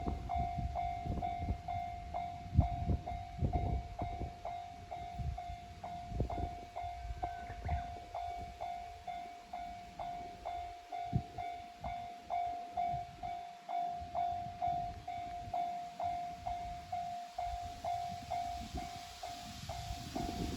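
Japanese railroad crossing alarm bell ringing a steady, evenly repeated clang, just under two strokes a second. During the first several seconds a KiHa 200 series diesel railcar passes over the crossing, with low rumbling and wheel clatter that fade away, leaving the bell alone.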